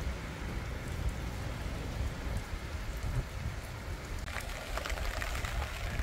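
Rain falling steadily, with a low rumble of strong wind buffeting the microphone; from about four seconds in, scattered sharp ticks of drops hitting close by.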